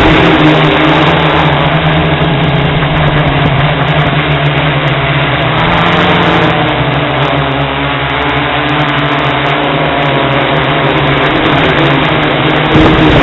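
A hexacopter's electric motors and propellers drone steadily, picked up close by the camera mounted on the craft. The pitch drifts slightly as the thrust changes.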